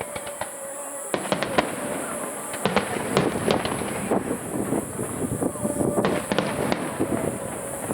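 Aerial fireworks of a starmine barrage: a rapid run of sharp pops and bangs, several a second, that picks up about a second in.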